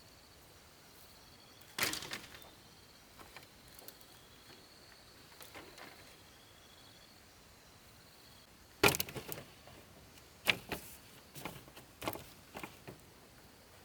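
A few sharp knocks and clatters, irregularly spaced and each ringing briefly, with the loudest about nine seconds in, over a faint steady high tone.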